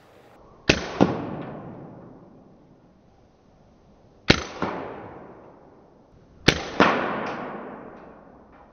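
Three loud, sharp double bangs, each a crack followed about a third of a second later by a second hit, then a long fading tail; they fall about a second in, past four seconds, and past six seconds.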